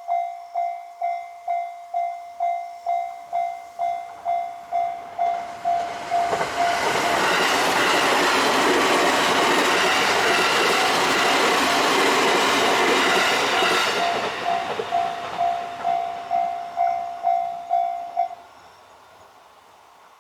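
Railroad crossing warning bell ringing in a steady repeat of about two strokes a second while a train passes. The loud rush of the train covers the bell for about eight seconds from around six seconds in. The bell stops near the end as the crossing clears.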